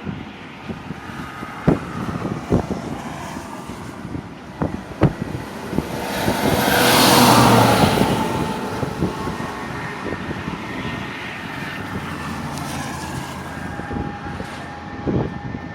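A road vehicle passing close by: its noise swells to a peak about halfway through and fades away. Scattered sharp knocks and clicks come before it.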